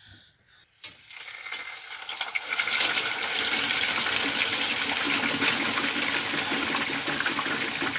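Par-cooked potato chips lowered into hot oil in a chip pan for their second fry. The oil starts sizzling about a second in and builds over the next two seconds into a steady, crackling boil around the chips.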